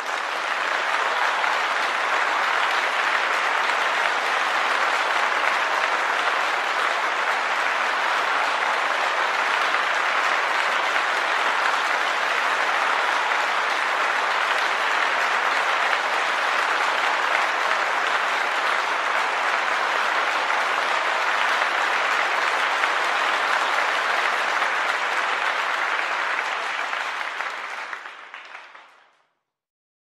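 A crowd applauding: dense, steady clapping that starts abruptly, holds evenly, then fades out over the last few seconds.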